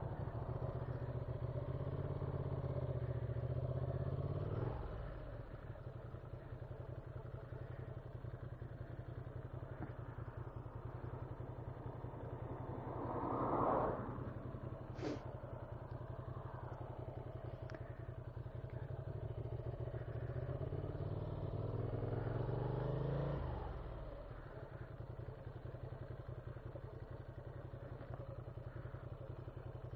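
Ducati Monster 695's air-cooled V-twin running at low speed and ticking over, picked up through a hands-free headset microphone. The engine picks up at the start, briefly about a third of the way in, and for a few seconds around two-thirds of the way through, settling back to a steady idle in between. A single sharp click comes just after the middle.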